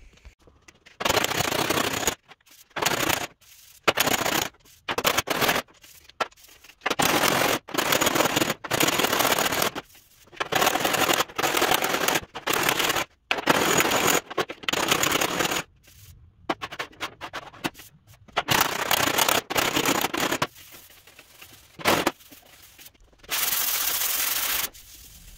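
Hand block-sanding with 80-grit paper across a welded steel door-bottom panel: repeated rasping strokes, each about half a second to a second long with short pauses between, and one longer stroke near the end. The sanding knocks down the high spots so that the highs and lows of the weld seam show up for further metal finishing.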